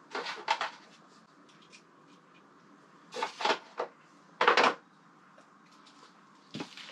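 Clinks and clatters of tools and small parts being picked up and set down during a motorcycle heated-grip repair, in a few short bursts with quiet between.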